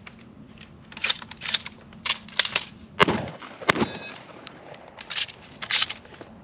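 Semi-automatic shotgun drill from an empty chamber: shells clack in one after another as the magazine tube is loaded and the action closes, then two shotgun shots about 0.7 seconds apart, a metallic ring after the second. Near the end come two more clacking shells, a reload made while moving.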